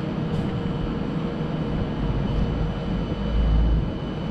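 Modern Circumvesuviana ETR 211 electric train standing at the platform, its onboard equipment giving a steady hum with a faint high whine. A low rumble swells about two seconds in and fades again about a second later.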